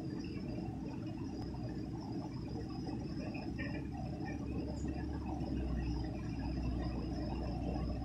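Water gushing from an outfall into a shallow concrete channel: a steady, low rushing.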